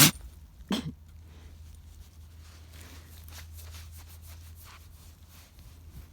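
A North American Indian Dog sneezing twice in quick succession. The first sneeze is sharp and loud, and a second follows about three-quarters of a second later.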